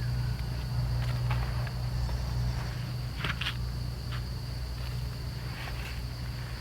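Outdoor background: a steady high-pitched drone over a low hum, with a few brief rustles or clicks, a pair of them about three seconds in.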